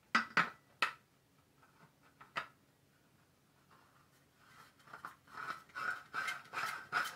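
Mimosa N5-X16 horn antenna being screwed onto the C5x radio's threaded mount by hand: a few sharp clicks in the first second and one more a little later, then a fast run of clicking and scraping of the threads turning from about four and a half seconds in.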